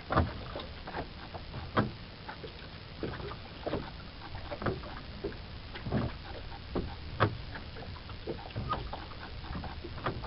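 Stern sculling oar of a small wooden boat worked back and forth by an automatic sculling device: irregular knocks and clicks from the oar and its mount, with splashes of the blade, about one a second. A steady low rumble of wind on the microphone lies under them.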